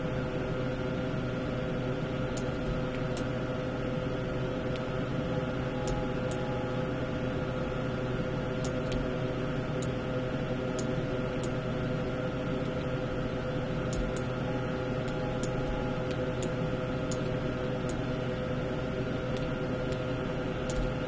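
Steady hum of a computer's fans with several fixed tones, and faint, scattered mouse clicks every second or so.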